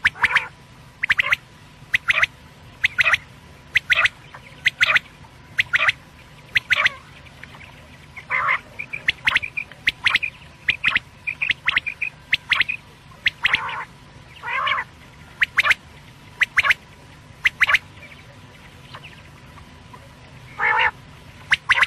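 Quail (batair) calling: short sharp calls repeated in quick clusters about once a second, with a few longer, drawn-out calls around the middle and one near the end.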